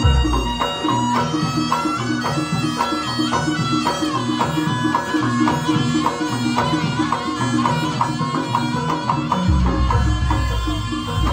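Live Javanese jaranan ensemble music played loud through a PA: a reedy shawm (slompret) holds its melody over drums and gamelan percussion in a steady beat. Deep low booms sound at the start and again near the end.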